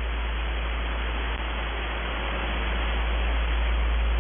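Shortwave radio static from a recording of the Russian station UVB-76: a steady hiss over a low hum, with no voice or buzz standing out.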